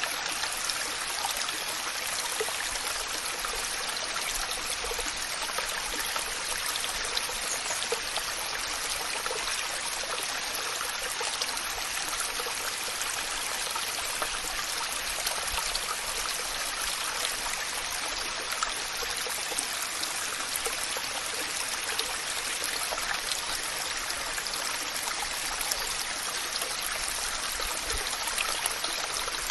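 Waterfall: a steady, unbroken rush of falling water, bright and hissing, with little low rumble.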